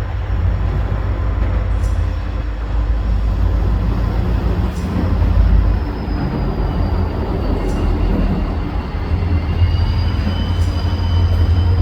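A train running past close by: a steady, loud low rumble of engines and rolling wheels, with a faint high-pitched squeal coming in about halfway through.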